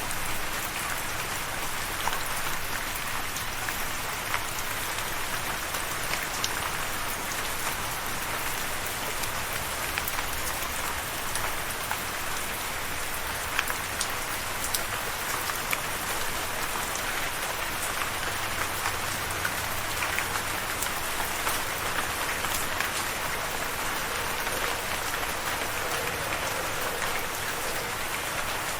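Steady rain falling, a continuous hiss with many individual drops ticking sharply on a hard surface.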